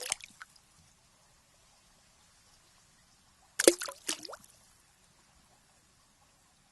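Water splashing and plopping in short clusters, with a brief gurgle in each: once right at the start, and again about three and a half seconds in. There is near quiet between them.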